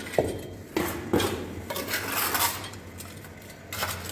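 Hard clinks and knocks of bricks and masonry tools being handled, a few separate strikes with a scraping stretch about two seconds in.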